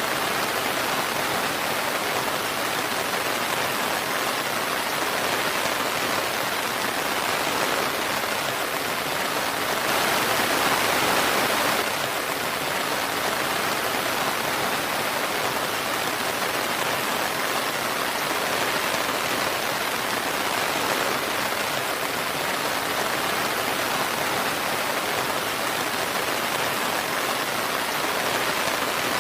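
Steady, even rain falling, with a slight swell in intensity about ten seconds in that lasts a couple of seconds.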